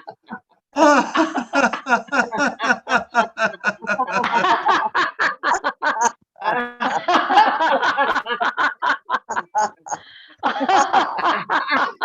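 Sustained, deliberate laughter on cue as a laughter exercise: long runs of rapid ha-ha-ha pulses, about five a second. It breaks off briefly twice, just after the middle and near the end.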